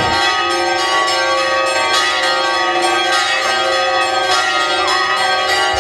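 Church bells pealing: several bells struck in quick, irregular succession, their tones ringing over one another. The peal starts and cuts off abruptly.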